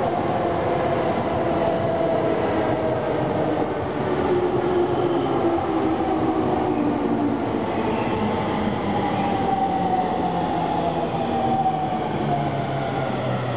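Electric train running on rails: a steady rumble with a motor whine that falls slowly in pitch.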